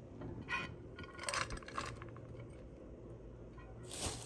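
Faint light clinks and soft scraping as grated carrot is tipped from a glass dish into a frying pan, with a brief rustle near the end.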